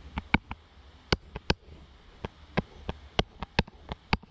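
A stylus tapping on a tablet screen as kanji strokes are written: about a dozen sharp, irregularly spaced clicks over a faint low hum.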